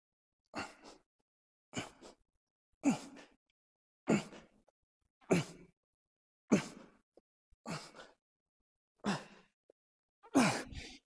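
A man breathing out hard with a short voiced grunt on each rep of barbell bent-over rows. There are about nine, evenly spaced about a second and a quarter apart, each falling in pitch.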